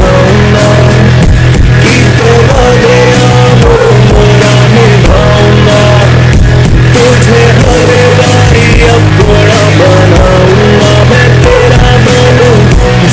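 Loud background music with a steady heavy bass and a melody line that moves up and down throughout.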